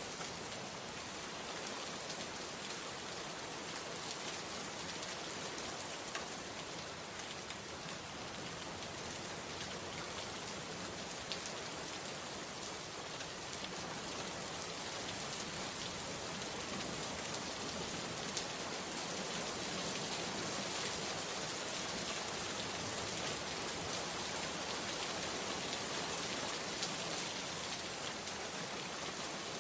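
Steady rain falling, a dense even hiss with scattered individual drop ticks, growing slightly heavier about two-thirds of the way through.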